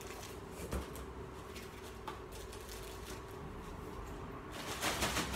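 Polystyrene packing peanuts rustling as they are scooped by hand out of a cardboard box into a plastic carrier bag, with scattered small clicks and a louder burst of rustling near the end.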